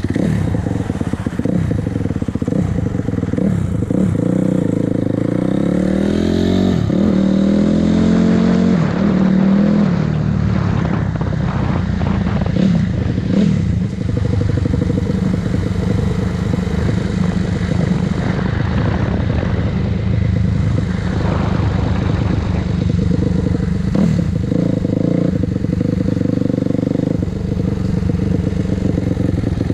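2006 Honda CRF250R's single-cylinder four-stroke engine running under way on a ride, its pitch rising and falling as the bike accelerates and shifts, with a clear climb in revs about six to ten seconds in.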